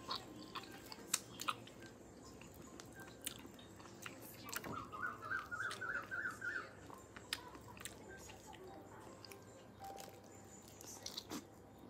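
Close-up eating sounds of a person chewing soft santol fruit, with scattered sharp wet mouth clicks.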